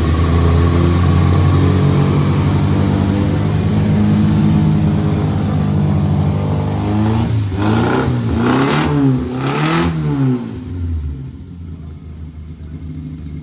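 Classic Austin Mini Cooper's A-series four-cylinder engine running at a raised speed, then revved up and down in three quick throttle blips starting about seven and a half seconds in, before settling back to a lower, quieter idle. The engine is running while it is being tuned by adjusting the distributor and fuel.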